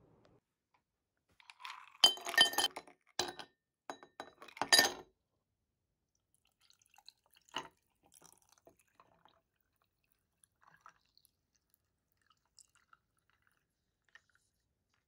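Ice cubes clinking loudly against a double-walled drinking glass in a quick cluster of sharp knocks, from about two to five seconds in, with one more clink a little later. After that, faint scattered crackles and ticks from the ice as coffee is poured over it.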